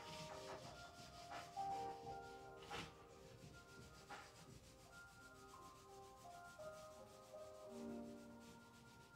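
Quiet lo-fi chillhop background music: soft sustained keyboard notes and chords changing every second or so, with a slow beat of soft hits about every second and a half in the first half, over a faint hiss.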